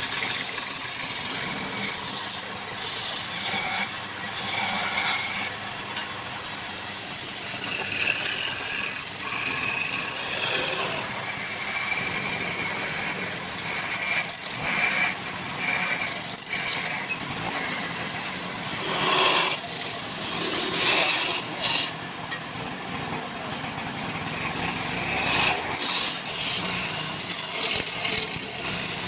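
Wood lathe running while a turning tool cuts the spinning wood: a steady hiss and scrape of shavings that swells and eases as the cut changes.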